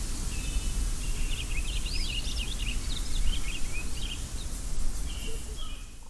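Outdoor ambience: a steady low rumble with small birds chirping and twittering throughout, all fading out near the end.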